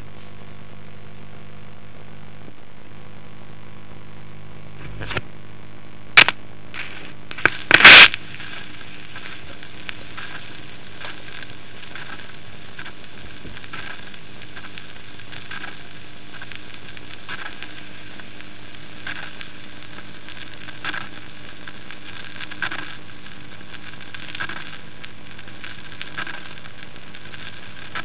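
Vinyl record surface noise in the silent groove between two organ pieces: a steady hiss with a faint hum, scattered crackles, and a few loud pops about six to eight seconds in.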